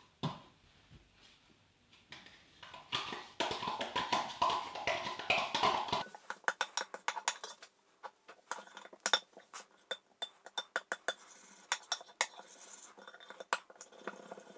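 A metal spoon stirring a yogurt marinade in a ceramic bowl, scraping and clinking against the bowl in quick, irregular strokes. About halfway through the clinks become sharper and more frequent.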